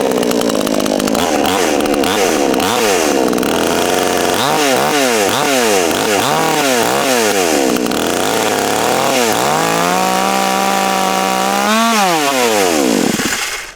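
Cheap two-stroke gas chainsaw running and being revved up and down repeatedly, then held at a higher speed before it winds down and stalls near the end. The owner wonders whether it wasn't warmed up enough.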